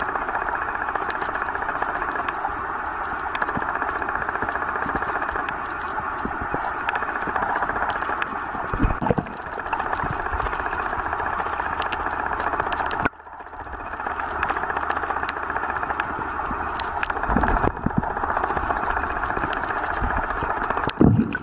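Steady underwater hiss with a fine crackle, picked up by a camera held under water. A few dull knocks come through, and the sound drops out briefly a little past halfway.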